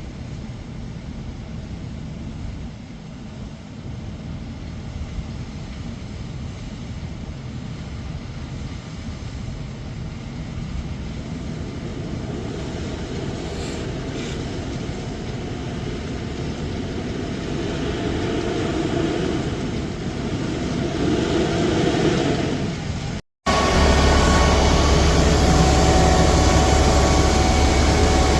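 Heavy farm vehicle engine running steadily, slowly growing louder; after a brief cut about 23 seconds in it comes back louder, with a strong low hum and steady tones.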